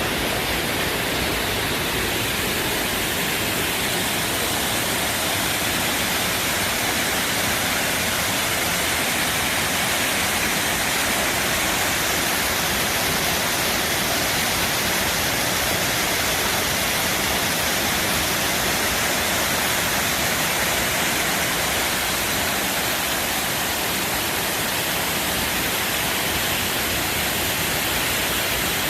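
Artificial waterfall running steadily: a constant rush of falling water.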